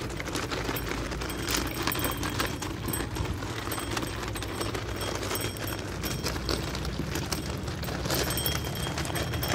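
Bicycle tyres rolling over loose crushed-stone gravel: a steady crunching with many small irregular clicks and rattles of stones.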